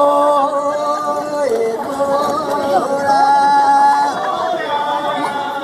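Singing in long held notes that step from one pitch to another, with voices chattering underneath.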